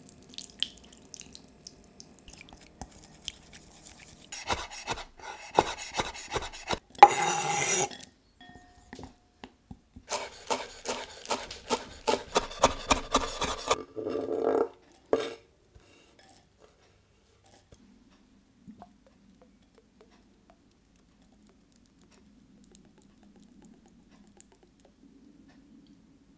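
Wooden chopsticks stirring a wet paste in a glass bowl: quick clicking and scraping against the glass in two spells, then a short scrape as chopped rocket is tipped in from a wooden board.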